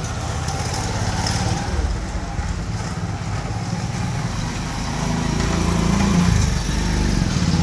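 A motor vehicle engine running close by, a low pulsing rumble that grows louder toward the end, over street noise.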